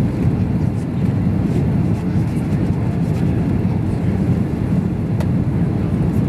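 Steady, deep drone of an Airbus A330 airliner heard from inside the passenger cabin: engine and rushing-air noise on the approach to landing with the flaps extended.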